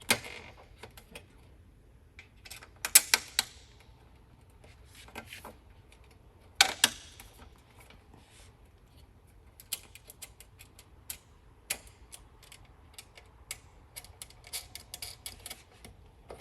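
Small metal hardware being handled and fastened: machine screws, nuts and tools clicking and clinking on a desk frame. The clicks are irregular, with the loudest clacks about three seconds in and again near seven seconds.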